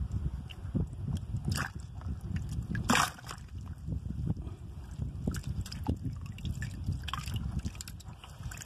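Water sloshing and splashing in a bucket holding live tilapia, with a few sharper splashes, the loudest about three seconds in, over a low rumble.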